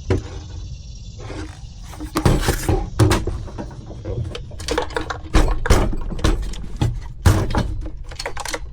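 A loose small part rattling inside the plastic housing of a Stihl BG 65C leaf blower as the blower is shaken and handled, giving a run of irregular knocks and clatters from about two seconds in.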